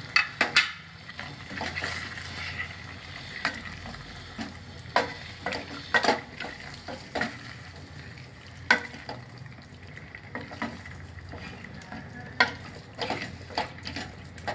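Prawns frying in tomato masala in a stainless steel pot, sizzling steadily, while a wooden spatula stirs them and knocks and scrapes against the pot at irregular intervals.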